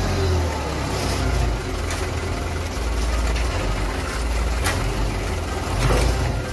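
A dump truck's diesel engine running steadily with its tipper bed raised, while soil spills off the back of the bed onto a heap.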